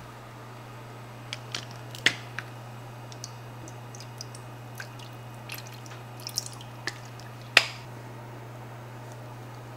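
Kitchen handling sounds over a frying pan of water: a seasoning bottle and a tin clicking and knocking, with liquid pouring and dripping in, over a steady low hum. The loudest knock comes about three-quarters of the way through.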